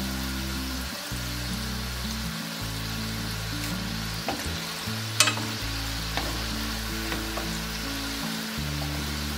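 Potato dough balls deep-frying in hot vegetable oil, a steady sizzle as they are stirred, with a single sharp click about five seconds in.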